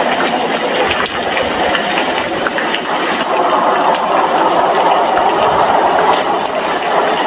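Steady rain at an apartment window: a continuous hiss with scattered sharp ticks of drops striking.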